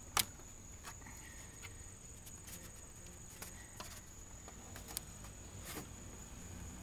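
Plastic Ecotec engine cover being handled and pressed down onto its mounting posts: one sharp click just after the start, then scattered lighter clicks and taps, over a steady high-pitched tone.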